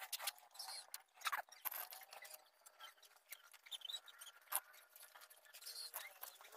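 A small hand file scraping across the steel teeth of a handsaw in short, irregular strokes, a thin metallic rasp as the saw is sharpened.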